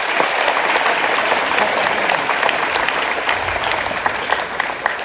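Audience applauding: a dense round of clapping that thins to scattered claps near the end.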